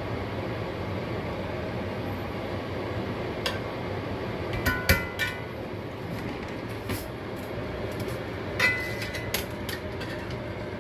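Utensils clinking against a pan and a serving platter as green beans are dished up: scattered clicks and short ringing clinks, grouped about halfway through and again near the end, over a steady low hum.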